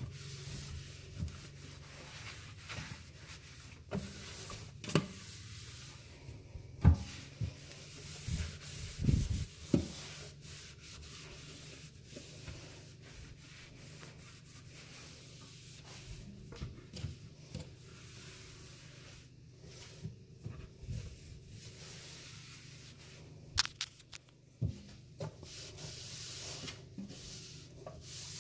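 Dry cloth rag rubbing and wiping over a sink and its chrome fittings, a continuous soft scrubbing with scattered light knocks and a few louder bumps.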